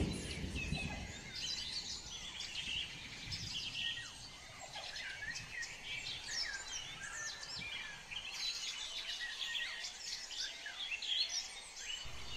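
Small birds chirping continuously, many short, quick, high chirps overlapping each other, over a faint low hum.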